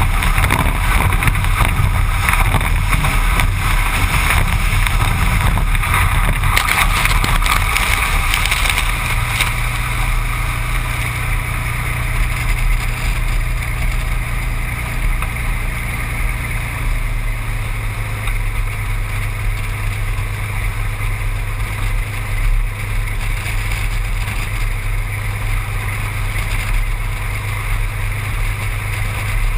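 Seaplane's propeller engine droning steadily, with wind noise; the engine note shifts twice, about a third and a half of the way through, and the rushing noise over it eases after the first third.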